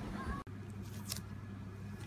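Bubble wrap crinkling briefly about a second in as a hand handles a bubble-wrapped package, over a steady low hum.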